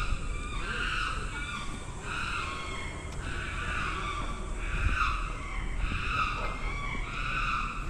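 A creature's call repeated steadily about once a second, each call a short, high, squealing note.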